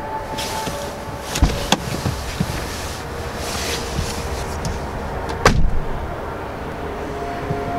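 A car door being opened and shut as someone gets out: two sharp latch clicks about a second and a half in, rustling of a winter coat, then the door shut with a loud thud about five and a half seconds in.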